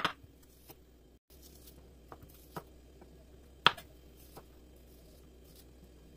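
Chef's knife cutting through asparagus stalks onto a cutting board: a few sparse, sharp knocks, the loudest a little under four seconds in, over quiet room tone.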